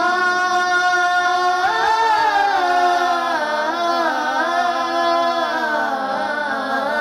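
Two boys singing an Islamic song together in unison, with no instruments, holding long notes with vibrato; the melody steps up to a higher note about two seconds in.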